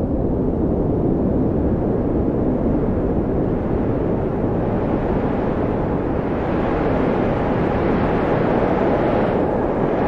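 Strong blizzard wind blowing steadily, a dense rushing noise. A gust makes it brighter from about four seconds in, then it eases off near the end.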